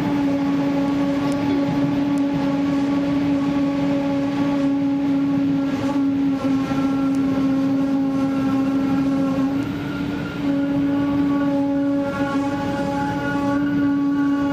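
Train running at speed, heard at the coupling of a Class 112.1 electric locomotive: a steady rush of wheels and air with a constant whine and its overtones over it, dipping briefly about ten seconds in.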